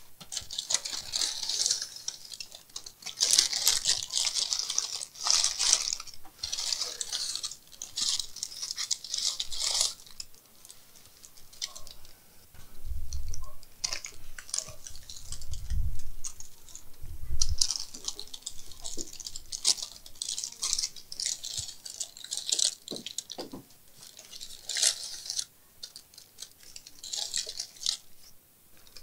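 Irregular scratching, rustling and clicking handling sounds, with a few low thuds about halfway through.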